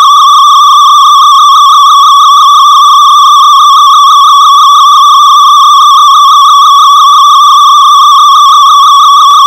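Loud, steady, high electronic tone from modular synthesiser equipment, with a fast, even warble in its pitch and a faint low hum beneath.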